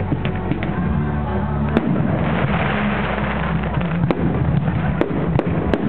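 Fireworks exploding over sustained music: sharp bangs of bursting shells, with a spell of hiss and crackle about two seconds in and a quick run of bangs near the end.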